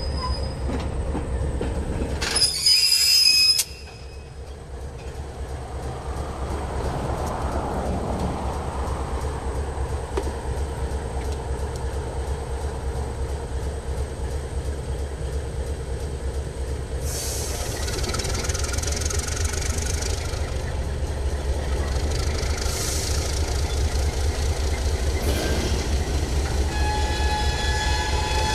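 MLW S-13u end-cab diesel switcher working steadily as it shoves a cut of freight cars along an industrial spur, its engine a constant low rumble. The car wheels squeal loudly on the track about two seconds in, and squeal more faintly several more times later on. Near the end a high tone is held.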